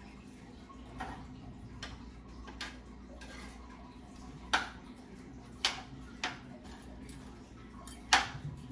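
Light clicks and taps of cookware, about seven at uneven intervals, the loudest near the end, over a steady low hum.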